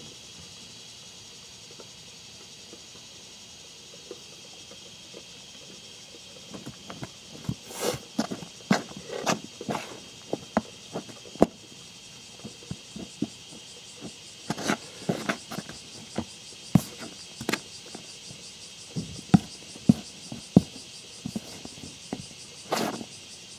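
A small trowel digging and scraping through loose, crumbly rearing soil in irregular scoops and crunches, starting about six seconds in, over a steady high drone.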